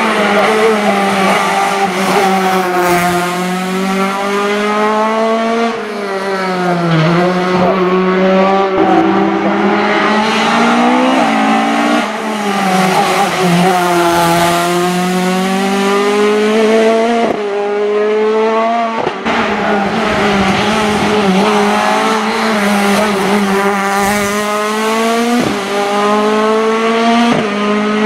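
Ford Escort Mk2's naturally aspirated 2.5-litre Cosworth YB four-cylinder racing engine at full throttle on a hillclimb run. Its pitch climbs over a few seconds and then drops sharply at each quick sequential gear change, again and again, and falls away on lifting off, with tyres squealing at times.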